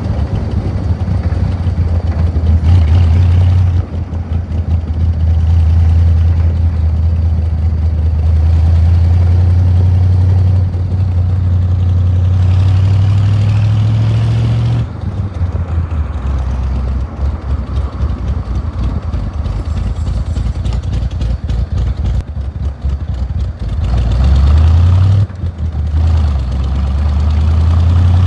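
The Allard's Ford engine, on twin Stromberg carburettors, running under load as the car is driven, with its fuel pressure freshly set at the regulator. The engine note drops away briefly about four seconds in and again around fifteen seconds, and climbs again near the end.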